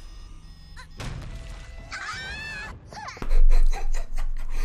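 Anime soundtrack with music and a high bending cry, then a sudden heavy thud of bodies falling to the ground about three seconds in, followed by further loud knocks.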